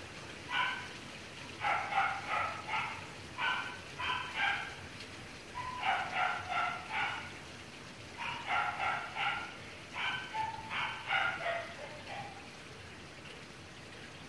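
A dog barking repeatedly in quick clusters of high-pitched yaps, three to five at a time, which stop about twelve seconds in. Steady rain sounds faintly underneath.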